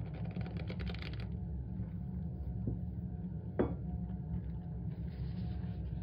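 Hands crumbling and squeezing packed cornstarch, a dry crunching and crackling that is densest in the first second. One louder, sharper crunch comes about three and a half seconds in. A steady low hum runs underneath.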